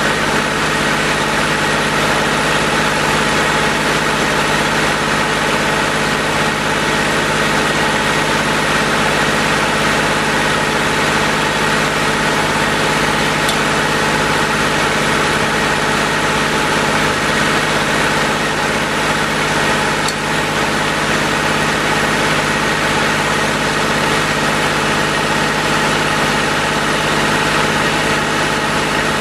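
Tractor engine running at a steady speed, powering a wood-splitting machine.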